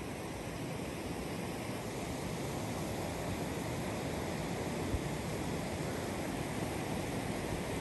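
River water rushing steadily around and between stepping stones, with one brief bump about five seconds in.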